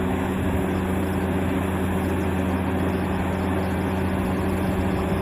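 Diesel engine of a large Caterpillar hydraulic excavator running steadily, an even low drone that holds one pitch.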